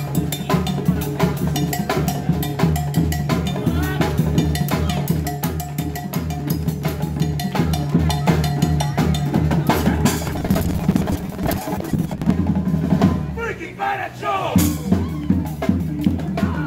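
Live drumming: snare drums played in a fast, even rhythm over a steady bass beat, with voices shouting near the end.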